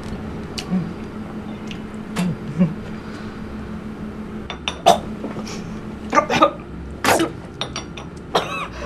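A woman coughing and spluttering on a mouthful of cake, in several bursts over the second half, after a few light clinks of crockery. A steady low hum runs underneath.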